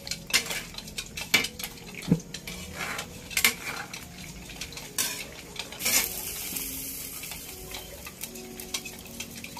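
Metal spoon scraping and clinking against a metal wok as chopsuey vegetables are stirred, with the food sizzling in the pan. The clinks come irregularly, and about six seconds in a steady sizzling hiss comes to the fore.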